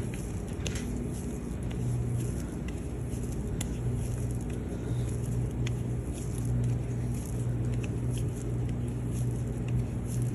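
A steady low hum, like a motor or fan running, with a few faint soft clicks and squishes from silicone mold putty being kneaded by hand.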